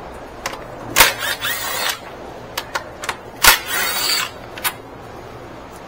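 Ratchet wrench and socket working on a fastener: sharp metal clicks and knocks with two rattling ratcheting spells of about a second each, the loudest clicks about a second in and about three and a half seconds in.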